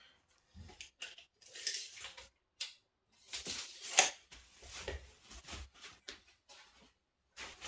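Handling noises: a cloth dust sheet rustling, with light clicks and knocks as a cordless drill is set down and a pine frame is lifted. The sharpest click comes about four seconds in.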